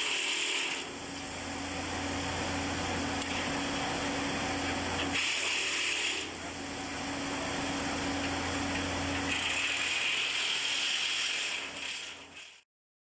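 Power tool noise that keeps changing, switching back and forth between a steady low hum and a brighter hiss several times, then cutting off suddenly near the end.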